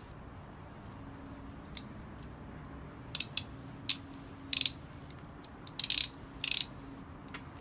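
Top Tech half-inch ratchet wrench being turned by hand: several short runs of clicking from the pawl, with pauses between them.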